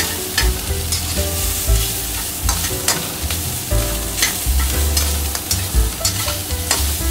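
Diced shrimp and chicken sizzling in hot oil in a wok while being stir-fried fast, the metal slotted spatula scraping and knocking against the wok again and again at an uneven pace.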